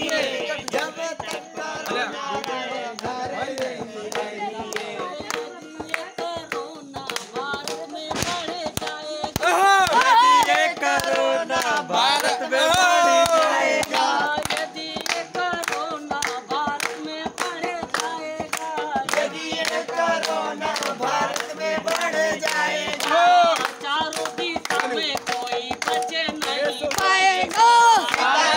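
Group singing of a Hindi devotional chant with a two-headed barrel drum beating a steady rhythm and hands clapping along.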